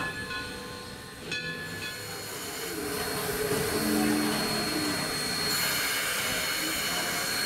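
Steam hissing from a 1942 Baldwin 2-8-0 S160 steam locomotive, getting louder about three seconds in and again about five and a half seconds in. Near the start come two short ringing strokes of the locomotive's bell.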